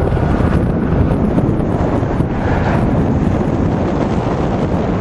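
Steady wind rumble buffeting the microphone while riding along on an electric bike.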